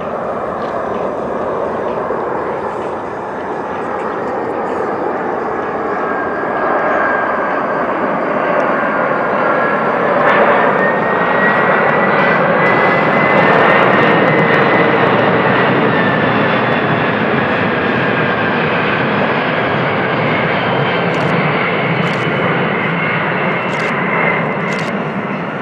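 Boeing 747 jet engines as the airliner goes by. The engine noise builds to a peak about halfway through and then eases off, with a high whine that rises and then drops slightly in pitch.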